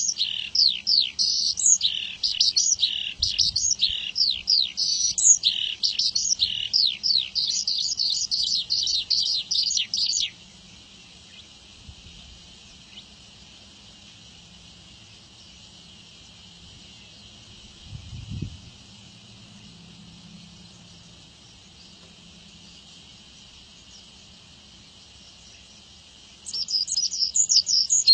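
Javan bush lark (branjangan) singing a fast, varied run of high chirps and trills that breaks off about ten seconds in. A long pause follows with only a faint steady high hiss and one soft thump, and the song starts again near the end.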